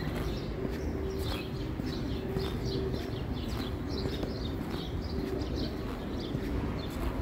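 Small birds chirping, short high chirps repeating several times a second, over a steady low hum of city ambience.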